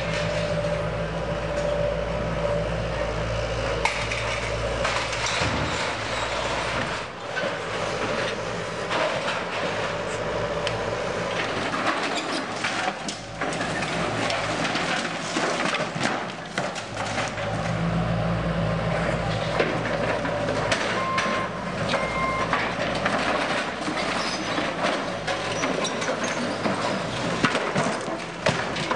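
Heavy demolition machinery working: a big engine running steadily, louder at the start and again a little past halfway, under a continuous run of knocks, crunches and cracks from the building being broken up.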